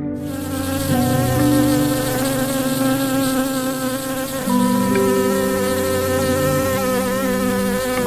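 A buzzing insect, a steady wavering drone, over background music.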